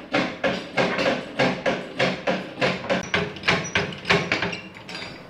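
Hydraulic scissor motorcycle lift being pumped up: a steady run of sharp metallic clanks from its pump and linkage, about three a second, easing off near the end.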